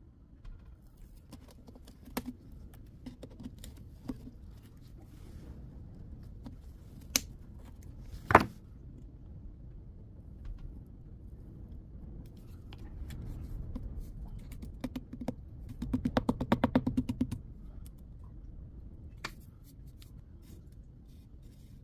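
Scattered clicks and knocks of handling work. There is one sharp knock about eight seconds in and a rapid rattling run of clicks around sixteen seconds.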